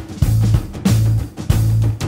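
Background rock music with guitar, drums and a steady, heavy bass beat.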